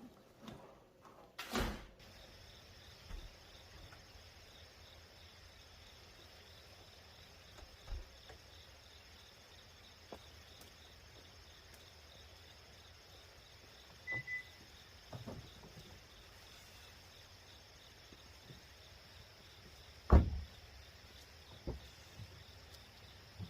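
A door shuts with a sharp thud, and the sound opens onto a steady outdoor background with insects buzzing high and steady. Scattered soft thumps follow, with one short high beep midway and the loudest thump a few seconds before the end.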